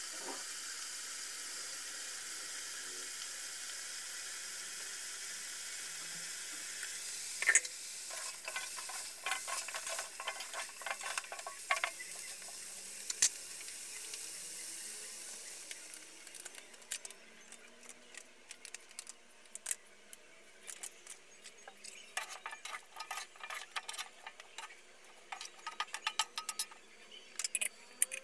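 Chicken feet cooking in a stainless steel pot. A steady hiss of steam and sizzling runs for about the first fifteen seconds, with a couple of sharp knocks, then fades into scattered crackles and pops of frying.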